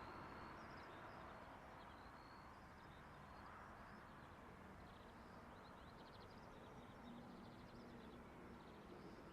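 Near silence outdoors with small birds chirping faintly: short runs of quick high chirps, most around the middle and again near the end.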